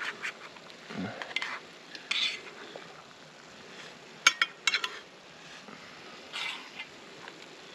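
Metal cutlery scraping and clinking against enamel plates and a metal pan as food is served out, a scattering of short clinks with the sharpest about four seconds in.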